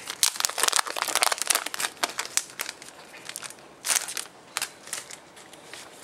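Clear plastic wrapping crinkling and crackling as it is opened and the paper documentation slid out. The crackles come thick and fast for about three seconds, with one more burst about four seconds in, then turn scattered.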